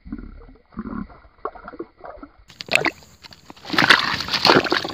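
Water sloshing and gurgling in a flooded mud burrow as an eel strikes the bait, at first slowed down and muffled. About two and a half seconds in it returns to normal speed and ends in a loud, rough burst of splashing and handling noise.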